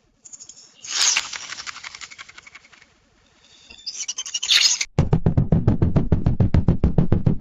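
A string of synthetic sound effects. First comes a hissing, scraping burst that fades over about two seconds. Then a rising swell of noise cuts off abruptly, and a rapid, deep rattling pulse of about eight beats a second follows.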